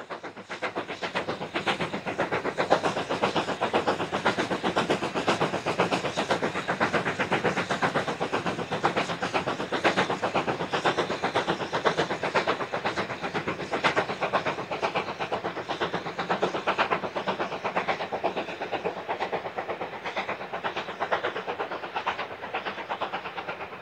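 Britannia-class Pacific steam locomotive 70013 Oliver Cromwell running past, its exhaust beating in a rapid, even rhythm, a little quieter near the end.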